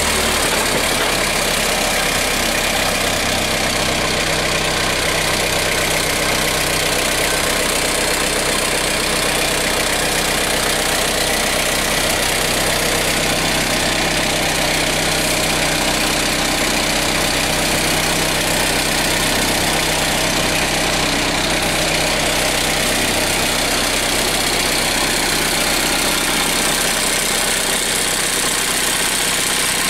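Diesel engine of a Daewoo Solar 50W-III wheeled mini excavator running steadily, heard close to its engine compartment.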